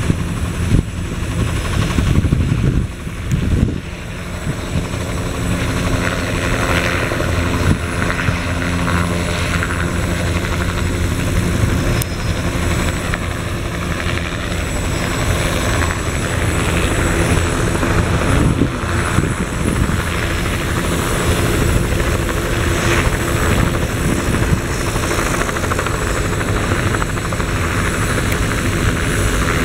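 Turbine helicopters running up close: the steady whine and thrum of engines and turning rotor blades, with a brief dip in loudness about three seconds in.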